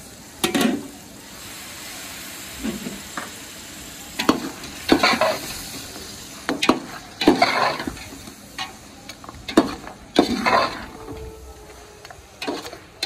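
A perforated steel skimmer scraping and stirring beef and masala around a large stainless-steel pot, about ten strokes at uneven intervals, over a steady sizzle of frying. This is the bhuna stage, frying the meat in the spices before the water goes in for the pulao.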